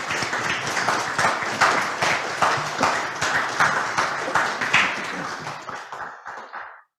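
Audience applauding: dense clapping that thins out after about five seconds and stops just before the end.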